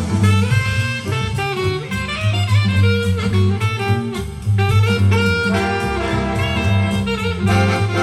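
Jazz recording with a saxophone lead over drums and a walking double bass, played back through Tannoy Platinum B6 loudspeakers as a listening demo.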